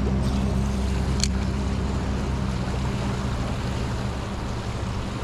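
Fast mountain river current rushing steadily, with a low hum that fades out about halfway and a single sharp click just over a second in.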